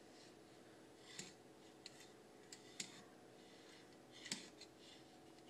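Pencil drawing layout lines on a wooden block along a metal ruler: a few faint, short scratches and clicks, spread out over a low steady hum.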